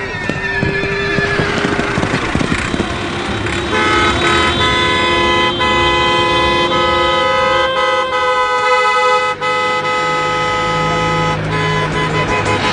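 Several loud, steady horn-like tones sounding together and held for seconds, starting about four seconds in after a stretch of noisy commotion, with a few sharp knocks among them.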